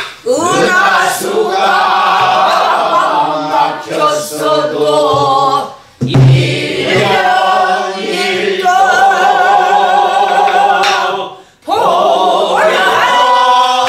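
A woman singing pansori in three long phrases, with held notes and wide vibrato, accompanied by a few strokes of a buk barrel drum. There are short breaks between phrases about six seconds in and again about eleven and a half seconds in.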